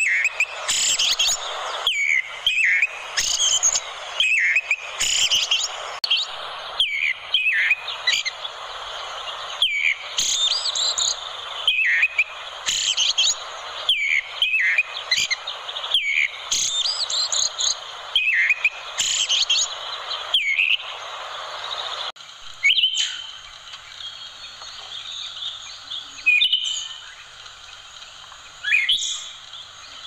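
Eyebrowed thrush (anis kuning) singing short, quick phrases of high whistles and chirps, one every second or two, over a steady hiss. About two-thirds of the way through, the hiss drops away and the phrases come more sparsely.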